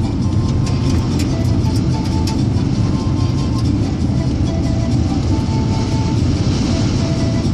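Steady low rumble of a vehicle driving, heard from inside, with road and engine noise and small scattered rattles.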